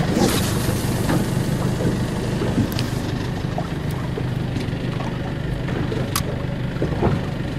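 Boat engine running at idle with a steady low hum, with a few short sharp clicks over it.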